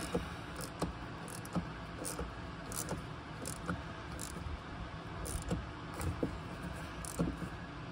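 A small wrench tightening a new bleeder screw into a Honda Gold Wing GL1100 front brake caliper, making scattered light metal clicks and ticks over a steady low hum.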